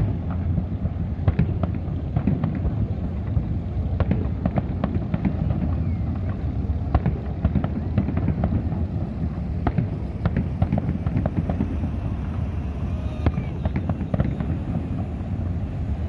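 Fireworks display going off continuously: many rapid, overlapping bangs and crackles over a steady low rumble.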